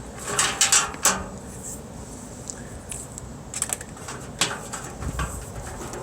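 Clicks and light rattles of computer case parts being handled during disassembly: a cluster of clicks in the first second, a few more around the middle, and a soft low thud near the end.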